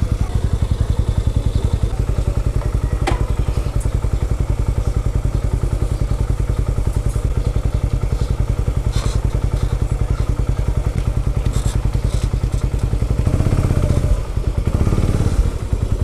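Motorcycle engine idling close by, a rapid, even putter that holds steady and shifts slightly near the end.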